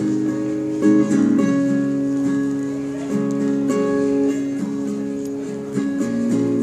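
Acoustic guitar strummed in a steady chord pattern, the chords changing every second or so, with no singing.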